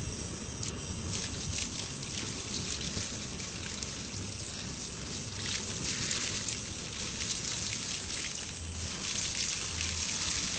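Gas jet fire at an open cylinder valve burning with a steady hiss and fine crackle.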